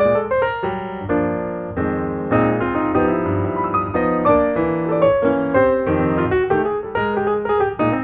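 Background piano music, a continuous run of notes.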